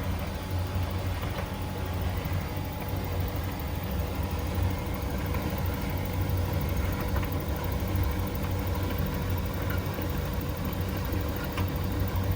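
LG condensation clothes dryer running, a steady, even machine hum with a low drone.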